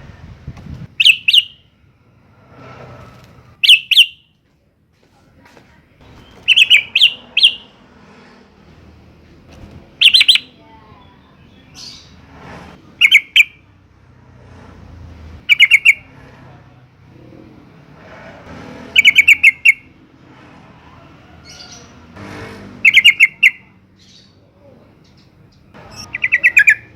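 Yellow-vented bulbul (trucukan) calling in short, loud, bubbling phrases of quick notes, one every two to three seconds.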